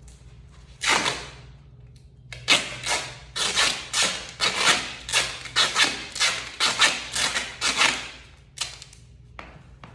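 A series of short rasping rips as restraints are pulled tight: one about a second in, then about a dozen more at roughly two a second for some six seconds, and a last one near the end.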